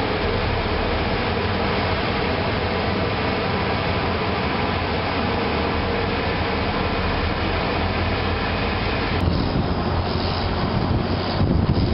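Heavy farm machinery running steadily during maize chopping, a continuous engine and mechanical noise. About nine seconds in, the higher hiss drops away and the sound becomes a lower, more uneven rumble.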